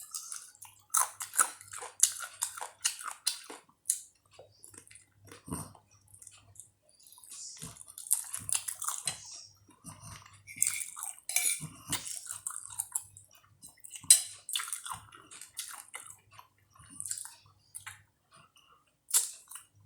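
Close-up eating sounds: irregular chewing, biting and lip smacks, with occasional clinks of a spoon on a dish.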